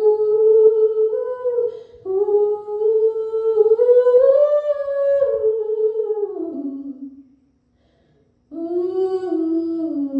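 A woman's unaccompanied voice humming a slow, wordless melody in long held notes. The line climbs to a high note about halfway, falls away and stops briefly, then a new hummed phrase begins near the end.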